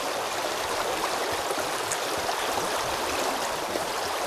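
River water rushing over a shallow, rippling riffle: a steady, even hiss of flowing water.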